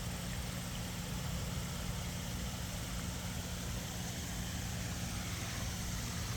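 A steady low mechanical hum, unchanging throughout, under an even hiss of running water from the koi pond's waterfall.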